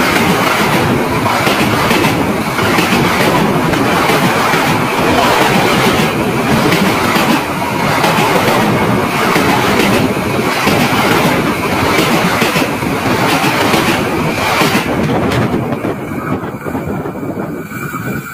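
Railway cars rolling directly overhead, heard from between the rails: loud wheel-and-rail noise with repeated clacks as the wheels pass. The noise drops away about fifteen seconds in as the last car clears.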